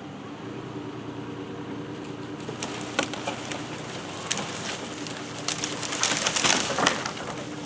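A pickup truck engine runs steadily while it drags chained pecan limbs off a roof. Crackling, snapping and scraping of branches and leaves builds from about three seconds in and is loudest near the end.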